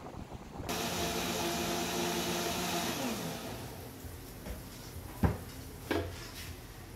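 Countertop blender motor starts suddenly at high speed and runs for a little over two seconds, then is switched off and spins down with a falling pitch. Two sharp knocks follow as the jar is lifted off the base.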